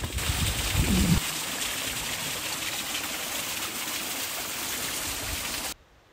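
Small mountain stream trickling and splashing over granite boulders: a steady rushing hiss that cuts off suddenly near the end. Low rumbling on the microphone in the first second.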